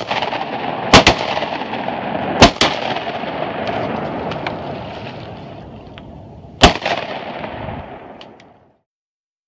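Several duck hunters' shotguns firing at ducks overhead: a pair of quick shots about a second in, another pair about two and a half seconds in, and a last single shot a few seconds later. A steady hiss lies behind the shots, fading away before the sound cuts off near the end.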